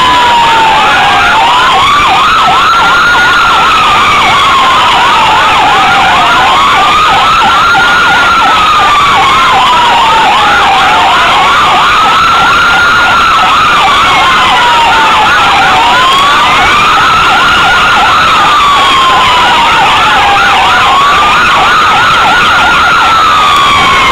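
Police car sirens sounding very loud and close, with a slow wail rising and falling about every five seconds over a fast, continuous yelp.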